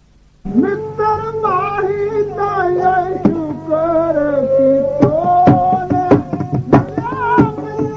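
Sikh kirtan music starting up after a brief silence: a sustained, sliding melody over steady held drone notes, with tabla strokes coming in about five seconds in.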